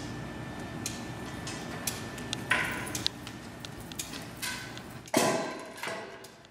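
Performers moving on a hard floor: scattered light ticks and knocks, a noisy rustle about two and a half seconds in, and a louder sudden rush just after five seconds that fades over about a second.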